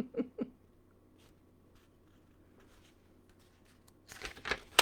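Paper rustling from a book page being turned, about four seconds in, after the end of a spoken line and a quiet pause.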